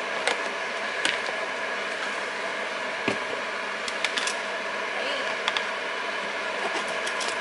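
Chef's knife clicking and knocking on a plastic cutting board as a garlic clove is cut and peeled, in scattered sharp taps, some in quick runs of two or three. Under them runs a steady mechanical hum.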